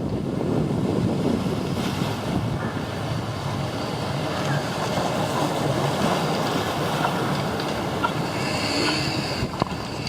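Steady rushing of churning water at a river-rapids raft ride, with wind on the microphone.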